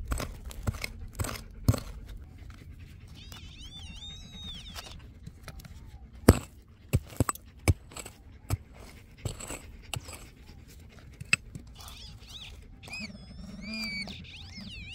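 Digging into the ground at a deep metal-detector signal: a dozen or so separate sharp strikes of a digging tool into soil. Twice a wavering high-pitched animal call is heard, about three seconds in and again near the end.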